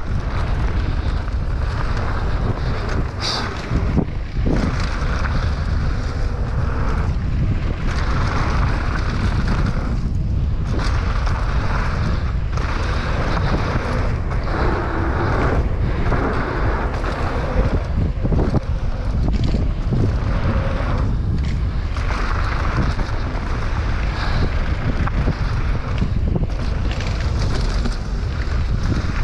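Wind noise buffeting the microphone during a fast mountain-bike descent, rising and falling, over the rumble of knobby tyres on a dirt trail and a few sharp rattles from the bike.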